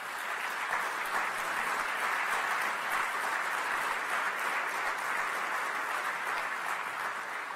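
A large seated audience applauding steadily, the clapping easing off near the end.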